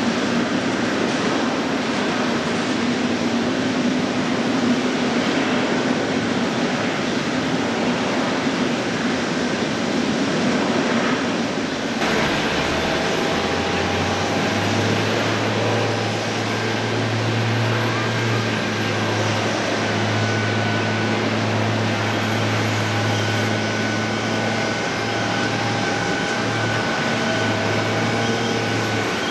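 Airliner jet engines at an airport, a steady rushing hum of aircraft taxiing. About twelve seconds in the sound changes, as a low drone and a few steady higher whines set in.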